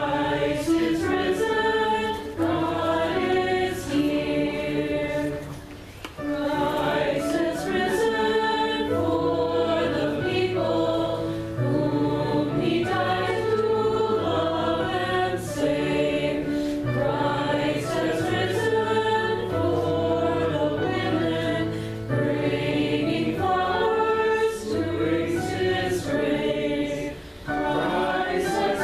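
A group of voices singing a hymn together with keyboard accompaniment, pausing briefly between phrases.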